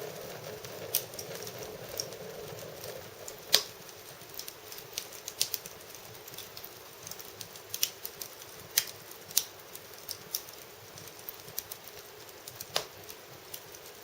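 Wood fire burning in an irori sunken hearth, crackling with sparse, irregular sharp pops and snaps, the loudest about three and a half seconds in.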